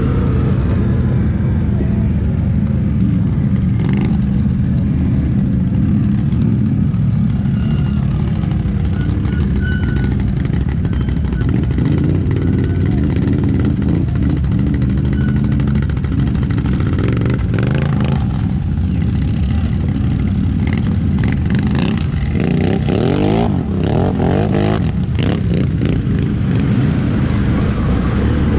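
ATV engine running hard and steadily, with the revs rising and falling toward the end and a few knocks and bangs along the way.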